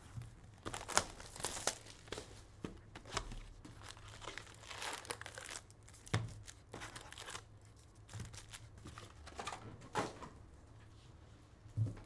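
A cardboard trading-card hobby box is torn open, and its foil card packs crinkle and rustle as they are lifted out and stacked, with a few sharp taps among the irregular rustling.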